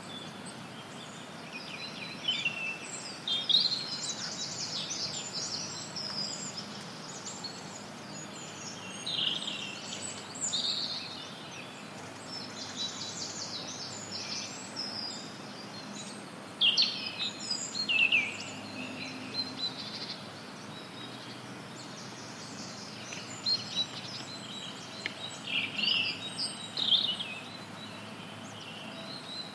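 Songbirds chirping and singing in scattered bursts over a steady hiss of white noise, with several short groups of high calls through the stretch.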